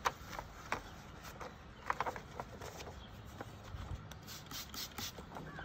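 Paper backing of an adhesive window film rustling and crinkling as it is peeled away, with a few short squirts of a trigger spray bottle about four seconds in.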